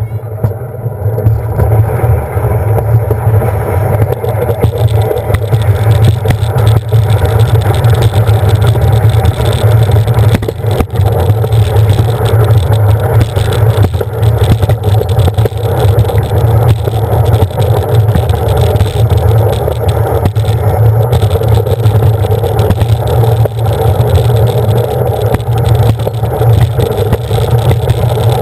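Alpine slide sled running down its track: a loud, steady rumble of the wheels on the trough, carried through the sled-mounted GoPro. It grows louder over the first couple of seconds as the sled picks up speed, then holds.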